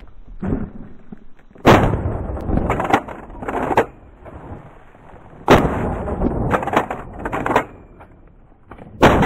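Three blasts from a GForce Arms 12-gauge pump-action shotgun, about three and a half seconds apart, each followed by shorter clacks and rattles before the next shot.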